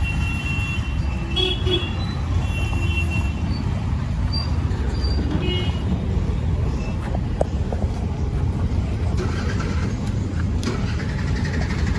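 Steady low rumble of road traffic with several short vehicle horn toots in the first half.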